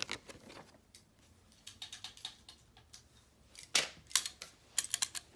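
Kitchen tongs clicking open and shut: a scatter of sharp clicks, light at first, then louder and quicker in the second half.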